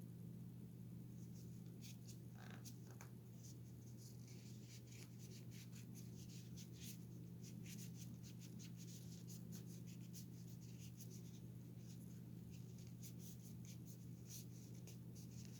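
Faint, quick, irregular scratchy rubbing strokes as the plastic hand of a toy football figure is scrubbed clean by hand, over a steady low hum.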